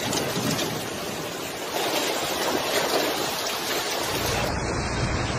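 Steady rushing noise of heavy rain and floodwater pouring down a street. About four seconds in it changes to a fuller, lower rush.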